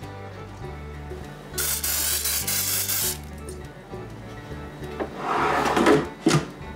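Olive oil sprayer hissing for about a second and a half as oil is misted over the potato poppers in the air fryer basket. Near the end the Philips XXL air fryer's basket drawer slides in with a rubbing scrape and shuts with a sharp clunk. Background music plays throughout.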